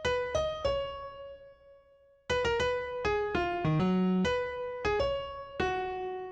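Background piano music: a slow melody of single struck notes that ring and fade, a pause of about a second, then a quicker phrase of notes.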